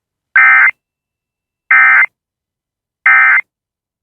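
Emergency Alert System end-of-message (EOM) data tones: three short, loud, buzzing digital bursts about a second and a half apart, the standard SAME code sent to mark the end of the alert.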